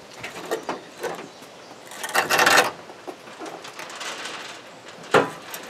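Steel vertical pellet smoker being tipped over and laid on its back: light metal clanks, a loud scraping rattle about two seconds in, and a sharp metal knock near the end.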